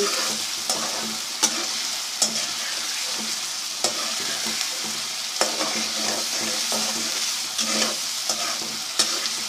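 Taro root pieces with ginger-garlic paste and grated onion sizzling steadily in hot oil in a metal pot as they are stirred during sautéing (bhuna), with scattered clicks of the stirring utensil against the pot.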